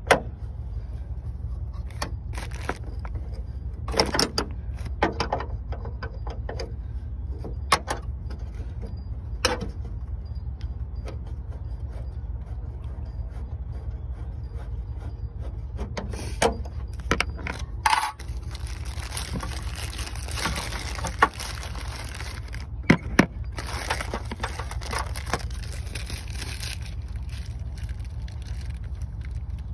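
Scattered metallic clicks and clinks of a 10 mm wrench turning the hood hinge bolts loose, over a steady low rumble, with a stretch of hiss past the middle.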